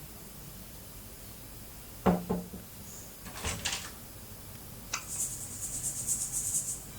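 Handling noises: a sudden bump with a brief low vocal sound about two seconds in, a few short clicks, then a fast, light, rhythmic rustle near the end.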